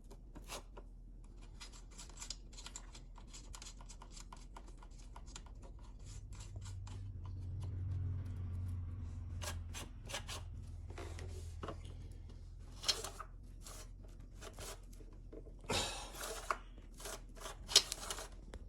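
Metal clicks and scrapes as a chainsaw's new chain and guide bar are handled and the chain tension adjusted by hand, with a low hum swelling and fading in the middle.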